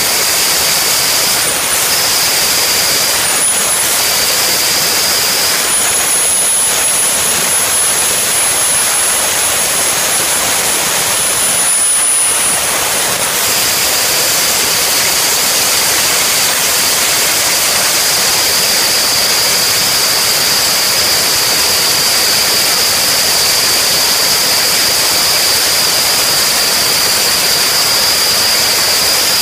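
Small jet engine on a jet-powered go-kart running while the kart stands still: a steady, loud rushing with a high turbine whine. The whine jumps between two pitches a few times in the first half, then holds steady.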